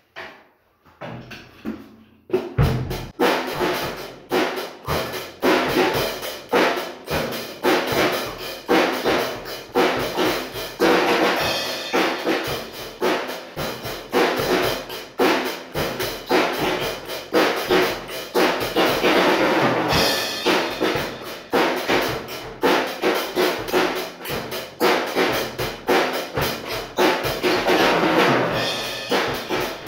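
A Rebel acoustic drum kit played freestyle: bass drum, snare, toms and cymbals in fast, busy beats and rolls. There are a few light hits at first, and the full playing starts loudly about two and a half seconds in.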